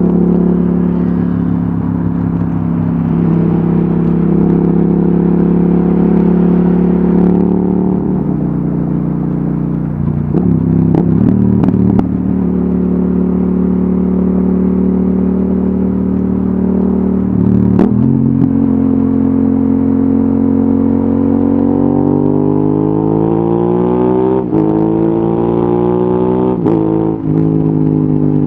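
Yamaha XSR700's parallel-twin engine through an Akrapovic exhaust, heard on board while riding. It holds fairly steady revs with a few gear changes, then revs up steadily for several seconds before dropping back near the end.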